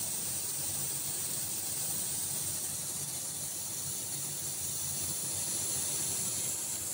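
Swan piston air compressor giving a steady, even hiss of air.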